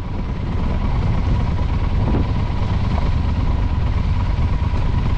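Motorcycle under way at a steady pace, a continuous low rumble of engine and riding noise that swells up over the first second and then holds steady.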